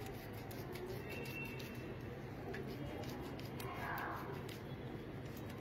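Faint, soft scrubbing of a squeezed lemon half rubbed back and forth over a wet paste pack on bare skin, over a low steady hum.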